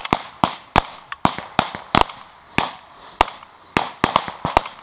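Several rifles firing blank rounds, single shots at irregular intervals, about a dozen in all, some close and loud, others farther off.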